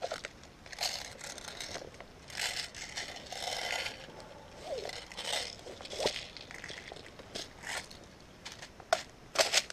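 Dry leaf litter crunching and rustling underfoot, mixed with irregular clicks and rattles of a magazine change on an Echo1 SCAR-L airsoft rifle. A few sharp clicks come near the end.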